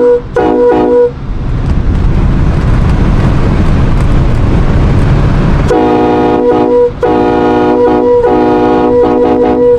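Nathan AirChime K5LLA five-chime train horn, a raised-letter two-piece, sounding its chord. A short double blast ends about a second in, then a few seconds of steady low rumble, then long blasts from about six seconds in, broken once briefly.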